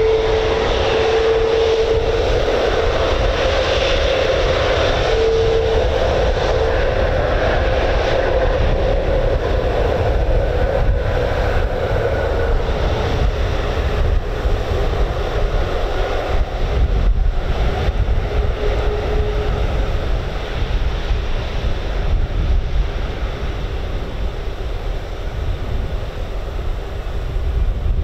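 Jet aircraft engines running, with a steady whine that is strongest over the first several seconds and then fades, under heavy wind rumble on the microphone.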